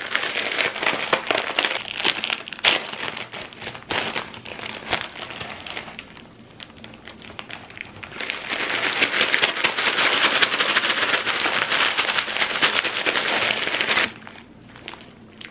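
Plastic instant-noodle packet (Samyang Ramen) crinkling and crackling in the hands, squeezed and then pulled open. The crackle eases off for a couple of seconds before the packet is opened and drops away again near the end.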